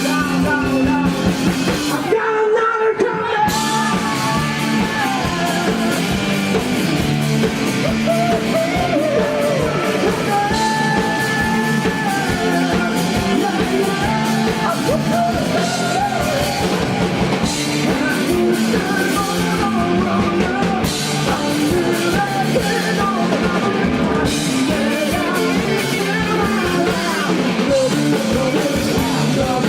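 Indie rock band playing live with singing over drum kit and guitars; about two seconds in the drums and bass briefly drop out before the full band comes back in.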